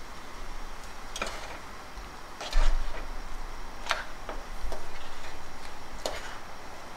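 Wooden spoon stirring cranberries in a metal saucepan, knocking against the pan about five times, with a duller thump about two and a half seconds in.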